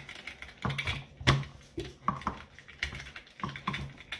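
Hard plastic parts of a Dyson DC50 vacuum cleaner clicking and knocking against each other as they are handled and worked back together by hand, in irregular taps, the loudest a little over a second in.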